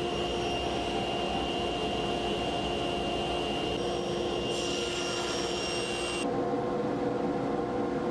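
Table saw running steadily while ripping a board into thin strips, a constant drone with a high whine. The high part of the sound shifts about four and a half and again about six seconds in.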